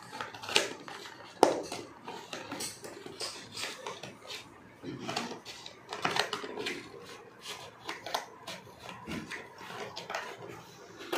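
Scissors cutting through a cardboard box: a run of irregular crunching snips with sharp clicks as the blades close and the box is handled.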